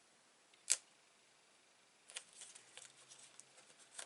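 A single sharp click a little under a second in, then faint paper rustling and light taps as card stock is handled and pressed into place.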